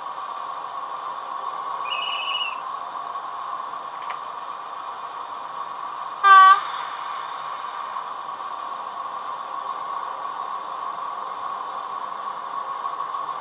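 A model narrow-gauge diesel locomotive's sound system running a steady engine hum, with a short high whistle about 2 seconds in and one short, loud horn toot about 6 seconds in, the departure signal at the station.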